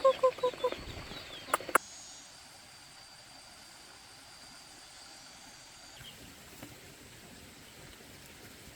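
Poultry calling in a rapid run of about eight calls a second, fading out within the first second. Two sharp clicks follow, then a quiet farmyard background with a faint high steady tone.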